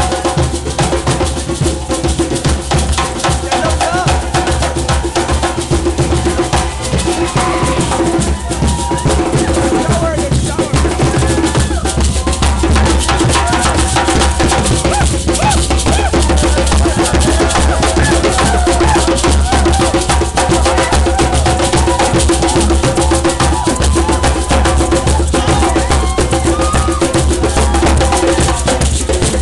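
Group of hand-beaten frame drums played in a fast, continuous rhythm, with crowd voices over it.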